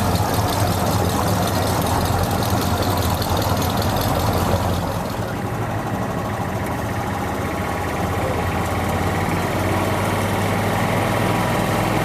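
Car engine idling steadily, a little quieter from about halfway through.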